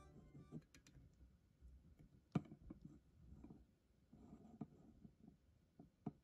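Near silence: quiet room tone with a few faint, sharp clicks, the loudest about two and a half seconds in.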